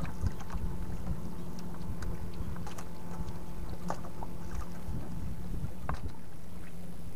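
Water moving against a small boat's hull at sea, with wind on the microphone, a faint steady low hum, and a few scattered light clicks and knocks.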